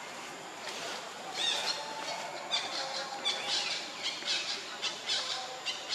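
Long-tailed macaque squealing: a fast string of short, high-pitched squeals starting about a second and a half in.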